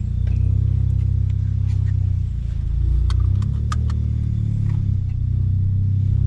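Turbocharged VW Golf engine running at low revs with a steady deep rumble, its pitch and level shifting slightly as it pulls away; a few short clicks sound around the middle.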